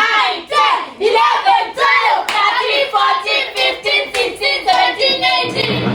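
A group of voices chanting in a steady rhythm, about two to three syllables a second, with hands clapping along.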